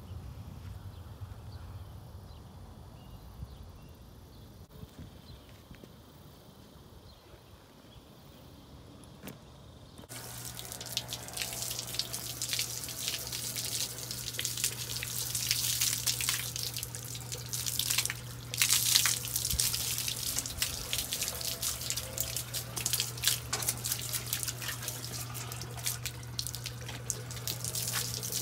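Water from a garden hose spraying and spattering onto a horse's wet coat, starting suddenly about ten seconds in, over a steady low hum. Before that there is only faint outdoor sound.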